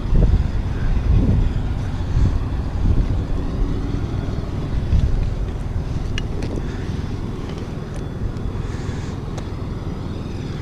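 Steady low engine-like rumble, with a few light clicks about six seconds in.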